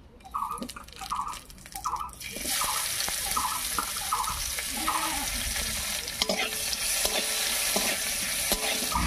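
Chopped onion and a bay leaf sizzling in hot refined vegetable oil in an aluminium kadai: a steady hiss that starts about two seconds in as they hit the oil, with a metal spatula stirring them near the end.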